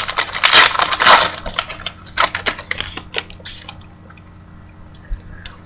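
Trading cards being handled and shuffled by hand: rustling for the first couple of seconds, then a few light taps and clicks.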